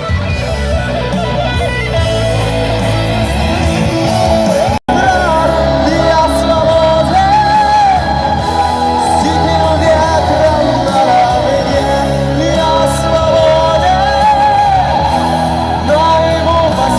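Live street band performing a song, with a singer over guitar and bass accompaniment. The sound cuts out for an instant about five seconds in, and the singing carries on from there.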